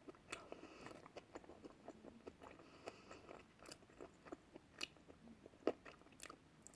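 A person chewing food close to the microphone: faint, irregular crunching and mouth clicks.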